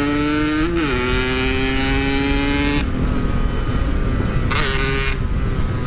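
Yamaha RX-King two-stroke single-cylinder motorcycle engine pulling hard, its pitch rising steadily, with a short dip about three-quarters of a second in as it changes gear. Near the middle the throttle shuts off and the engine tone stops, leaving a rush of riding noise, and a short burst of throttle follows a couple of seconds later.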